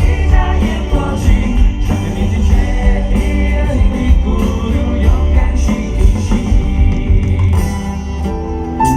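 Live rock band playing loudly, with drums, bass and guitars and some singing; the band settles into held chords near the end.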